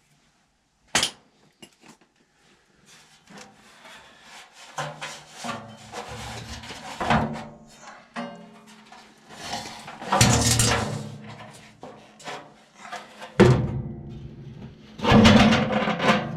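Music playing, with a sharp knock about a second in and further knocks and clunks through the rest.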